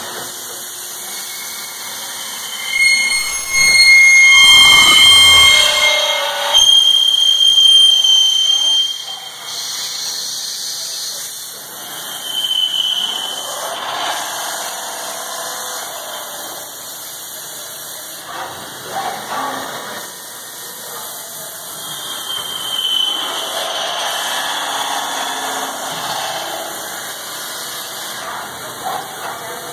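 Voortman V630 CNC beam drill boring into a steel beam: a loud, high-pitched squeal of the bit cutting from about three to nine seconds in, with shorter squeals later over the machine's steady running noise.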